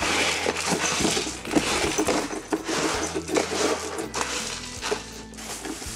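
A cat scrambling inside a cardboard box, its claws and body rapidly scratching and rustling against the cardboard, dying down near the end.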